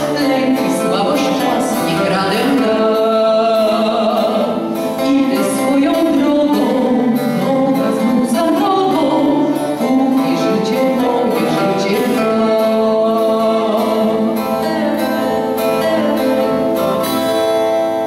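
A woman singing a Polish song into a handheld microphone, amplified, over an instrumental accompaniment.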